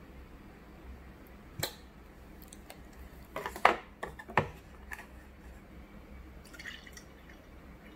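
Tableware being handled on a wooden tray: a click, then a short clatter of a few knocks about halfway through as a glass of milk and a bottle cap are set down, then a single click and some faint small rattles.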